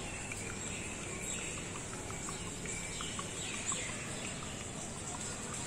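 Outdoor ambience: birds chirping over a steady high-pitched insect buzz.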